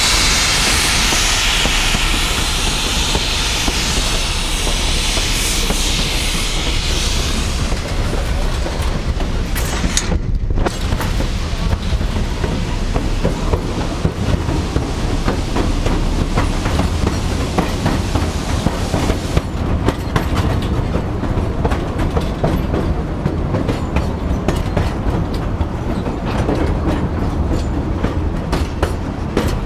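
Wheels of a Cumbres & Toltec narrow-gauge railroad car rolling on the rails: a steady low rumble with a loud high hiss over the first seven seconds or so. From about twenty seconds in, quick sharp clicks of clickety-clack grow dense.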